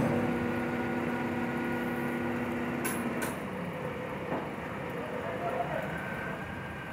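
Woodturning lathe running with a steady motor hum that stops about three seconds in, marked by two sharp clicks; a fainter hiss is left after.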